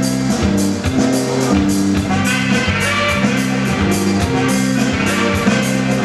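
Band music with held notes over a steady beat.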